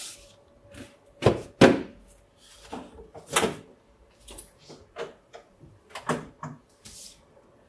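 Knocks and clacks of a stack of A3 cartridge paper being set down and squared on a risograph's metal paper-feed tray, with its side guides slid in against the sheets. The two sharpest knocks come about a second and a half in.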